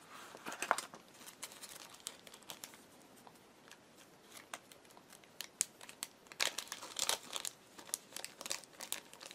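Clear plastic bag and paper packet of sewing-machine needles crinkling as they are handled and opened to take out a needle. Quiet, scattered crackles, busiest about six and a half to seven seconds in.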